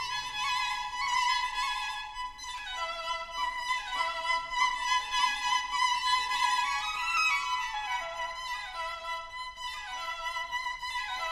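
Instrumental background music: a melody of pitched notes that change about every half second.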